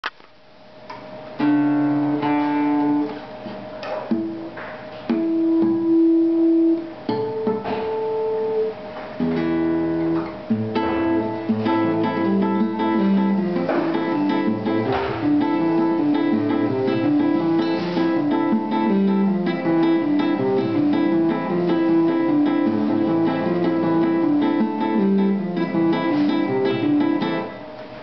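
Classical nylon-string guitar played fingerstyle. At first it sounds a few single notes and chords with pauses between them. From about ten seconds in it plays a continuous fast run of plucked notes, which stops shortly before the end.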